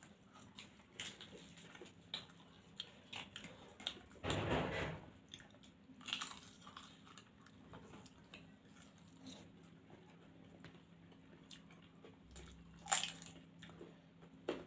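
Close-miked mouth sounds of eating homemade noodles and spinach poori: chewing and biting with many small wet clicks. A louder noisy burst comes about four seconds in and a sharp one near the end, over a faint steady hum.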